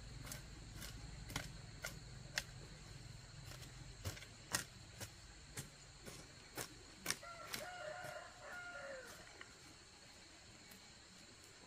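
A series of sharp clicks or knocks, about two a second, for most of the first seven seconds. Then a rooster crows once in the background, a drawn-out call of about a second and a half.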